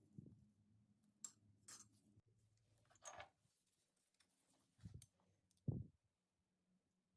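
Faint kitchen food-preparation handling sounds: a few light clicks and a short scrape, then two soft low thuds, the second the loudest, a little under six seconds in.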